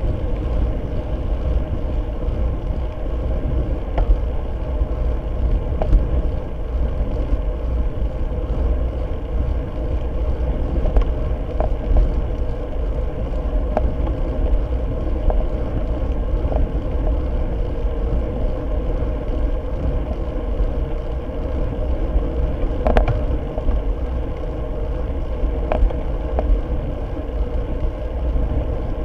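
Wind and road noise from a road bike riding at speed, heard through the microphone of a seatpost-mounted rear-facing camera: a constant low rumble with a steady hum over it. A few sharp ticks from bumps in the road, the loudest about three-quarters of the way through.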